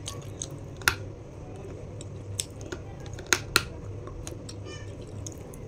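Close-miked crunching of a hard white chunk being bitten: a few sharp, crisp snaps, one about a second in and two close together past three seconds, followed by a short crackle.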